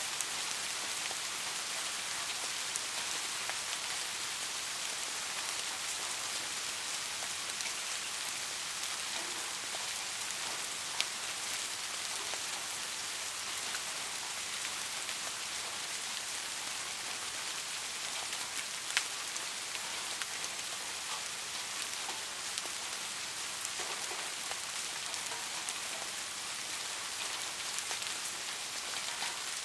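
Steady rain falling, an even dense hiss with a few sharper drop ticks now and then.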